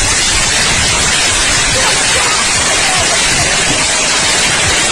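Storm wind at hurricane force blowing hard onto the microphone: a loud, unbroken rushing roar.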